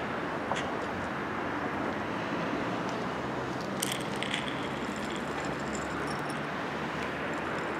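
Steady traffic noise from the street, with a few short clicks and rattles around the middle as a plastic bottle of dry cat food is handled.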